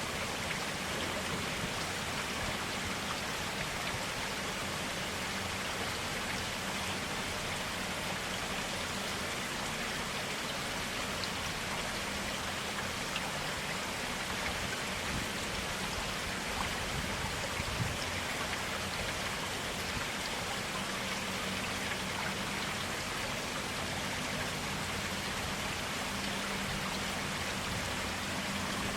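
Clear water flowing steadily in a stream: an even, unbroken wash with a few small drips and splashes.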